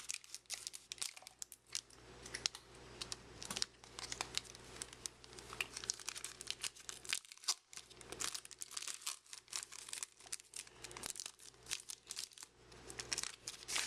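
Trading card pack wrapper being torn open and crinkled by hand: a run of irregular crackles and small tears, with a brief pause about halfway.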